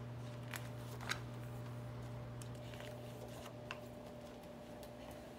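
Pages of a hardcover picture book being turned and handled: a few short, soft rustles and clicks over a steady low hum.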